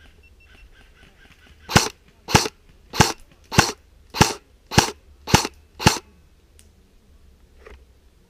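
Airsoft rifle firing eight single shots in an even rhythm, a little over half a second apart, each a sharp crack.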